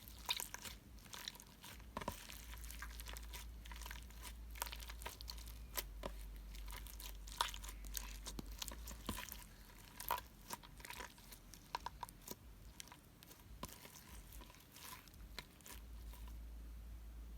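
Slime being squished and stretched by hand, giving a run of irregular small crackles, clicks and pops that thin out near the end.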